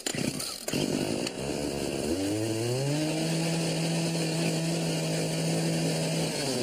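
Pull-start gas-powered blender: its small engine is pull-started and revs up over about a second, then runs at a steady pitch, winding down at the very end.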